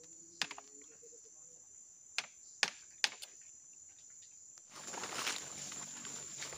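Insects trilling steadily at a high pitch, with a few sharp clicks in the first half. From about three quarters of the way in, footsteps rustle through dry leaf litter.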